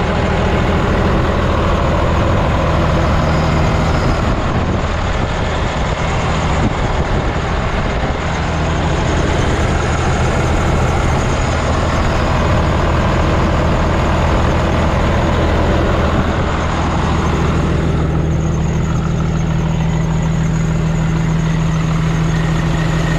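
Cummins ISM inline-six diesel in a day cab truck idling steadily, heard up close over the engine. Near the end the sound turns duller and lower, heard from beside the cab instead of over the engine.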